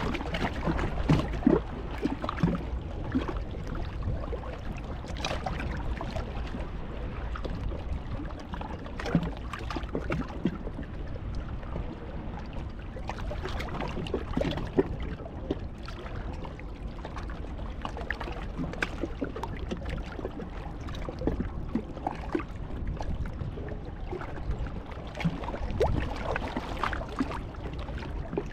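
Sea surf washing on the shore, a steady rushing noise with a low rumble from wind on the microphone and scattered small clicks and knocks.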